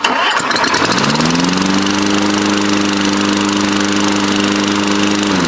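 Lawn-Boy mower's Tecumseh engine starting at once on its electric start, rising to speed within about two seconds and running steadily, then shut off near the end and winding down.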